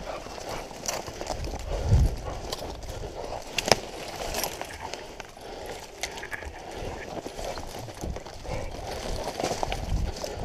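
Footsteps of someone running through dry leaf litter and brush, twigs crunching and branches brushing past. There is a heavy thump about two seconds in and a sharp snap shortly before four seconds.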